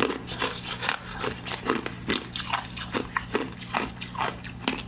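Ice being bitten and chewed: a fast, irregular run of sharp cracks and crunches from a large block of frozen juice ice, several a second, over a low steady hum.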